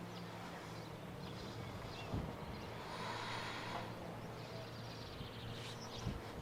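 A person breathing out slowly and audibly, a breathy exhale about halfway through, over a steady low hum. Two soft low thumps, one about two seconds in and one near the end.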